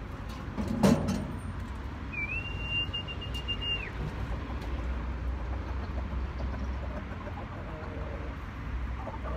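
Wooden chicken run as hens are let in: a single sharp knock about a second in, then one high, level whistle-like tone lasting nearly two seconds that drops away at its end, over a steady low hum.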